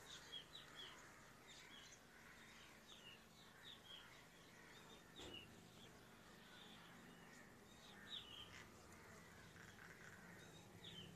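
Faint chirping of small birds: many short, high notes scattered throughout.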